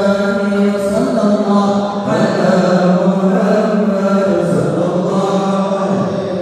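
Congregation of men chanting sholawat in unison, a sustained, melodic devotional chant in Arabic.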